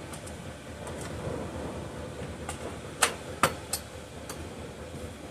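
A handful of sharp clicks and taps, the loudest about three seconds in, over a steady hum, as an old Poulan chainsaw with its engine not running is spun over by hand to check for ignition spark.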